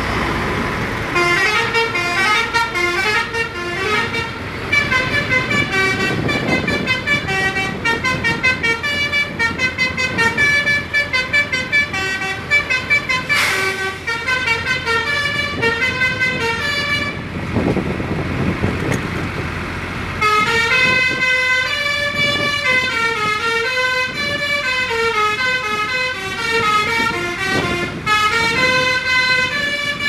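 Tour bus's basuri multi-tone horn playing quick melodies of short stepping notes, stopping for about three seconds past the middle and then starting a new tune, over the bus's road noise.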